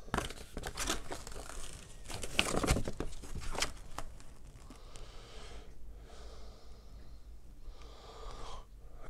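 A folded paper instruction leaflet being leafed through and unfolded, its pages rustling and crinkling. The rustling is busiest in the first few seconds, then turns faint.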